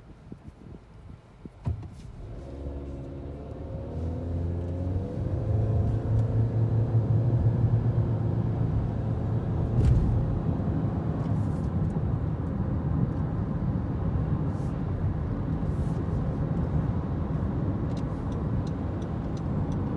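Car accelerating, the engine's pitch rising over a few seconds, then settling into steady engine and road noise at speed. A short knock just before the car pulls away.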